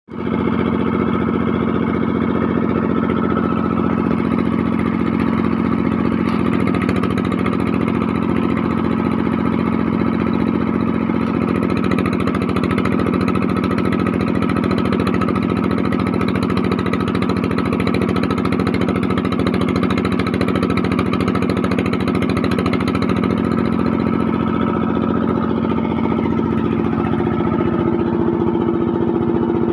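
A small engine running steadily with a fast, even pulse. Its pitch shifts a little after twenty seconds and again near the end.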